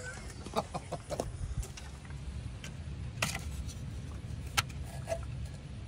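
Scattered light clicks and knocks of hands working around the ABS hydraulic control unit and its plastic wiring connector, with two sharper clicks about three and four and a half seconds in, over a steady low rumble.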